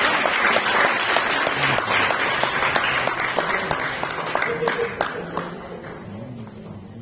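Audience applauding, the clapping thinning out and dying away over the last few seconds with a few last separate claps.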